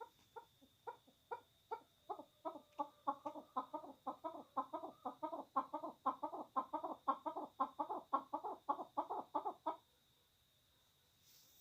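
Chukar partridge calling: a long run of repeated clucking notes that starts slowly and speeds up to about four or five a second, then stops suddenly near the end.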